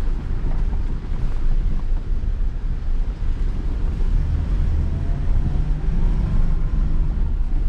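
Mitsubishi L200 Triton pickup driving slowly over a rough, rocky dirt track: a steady low engine and drivetrain rumble with tyres crunching over stones and gravel, mixed with wind buffeting the microphone.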